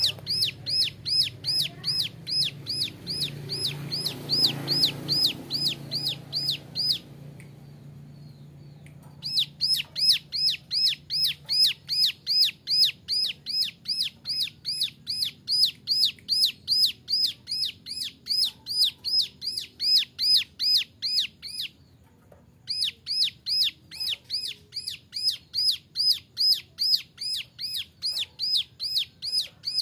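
Young ciblek gunung (a mountain prinia) calling a fast, even series of sharp, hooked whistled notes, about three a second, the rapid 'nembak' delivery, broken by a pause of about two seconds some seven seconds in and a brief one near twenty-two seconds.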